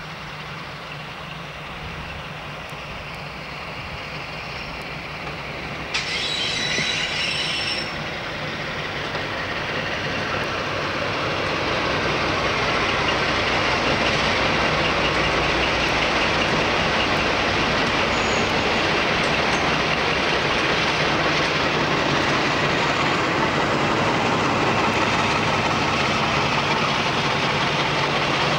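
Class 52 'Western' diesel-hydraulic locomotive, with its twin Maybach MD655 engines, growing louder as it approaches, then running steadily close by. A short high-pitched sound comes about six seconds in.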